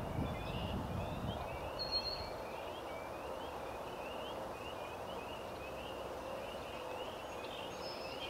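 A steady chorus of short, rising chirps, several each second, with a faint steady hum underneath.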